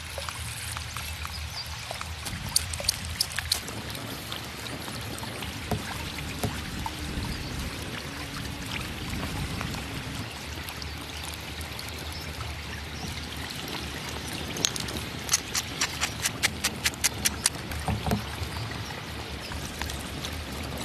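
River water flowing steadily. Sharp clicks stand out over it, a handful about three seconds in and a quick run of about a dozen, several a second, a little past the middle.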